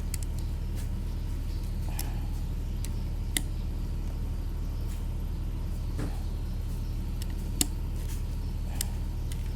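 Scattered sharp metal clicks and clinks of hand tools on alternator parts during reassembly, the two loudest about three and seven and a half seconds in, over a steady low hum.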